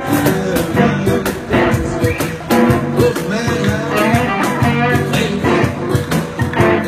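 Live band music: an electric guitar and acoustic guitars playing together with a steady strummed rhythm.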